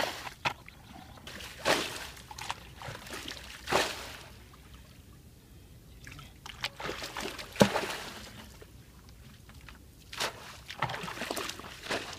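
Muddy water splashing and pouring in irregular bursts a few seconds apart as a plastic bucket bails out a shallow puddle, with quieter gaps between the throws.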